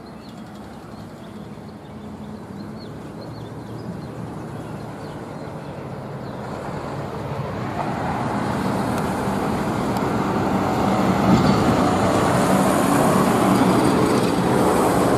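A road vehicle approaching and passing close by: a rushing traffic sound that grows steadily louder and is loudest in the second half.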